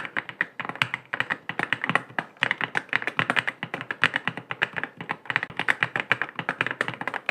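Continuous fast typing on a YUNZII X98 gasket-mount mechanical keyboard with pre-lubed Snow linear switches: a steady stream of quick key clacks with brief pauses.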